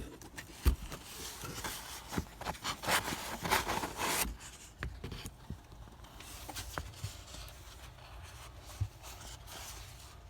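Paper and card being handled: a sharp tap just under a second in, a few seconds of rustling and rubbing, then fainter scattered handling noises.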